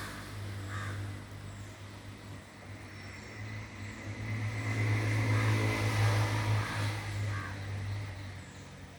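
A bird gives two short calls, about a second in and near the end, over a low engine hum that grows louder toward the middle and then fades away, as a vehicle passing by.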